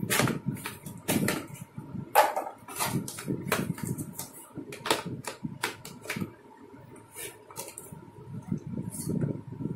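Hard plastic parts of a toy kitchen set clicking and knocking against each other as they are handled and fitted together: irregular sharp clicks with duller bumping and rubbing between them, going quieter for a couple of seconds past the middle.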